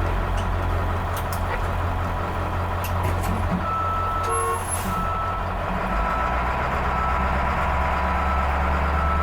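A school bus's diesel engine running steadily, with a back-up alarm beeping about once a second from a few seconds in.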